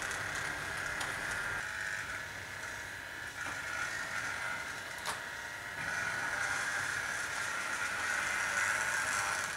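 OO gauge model 5700 class pannier tank locomotive running on the layout: a steady whirr from its electric motor and wheels on the track, dropping off for a few seconds midway and then coming back. A single sharp click about five seconds in.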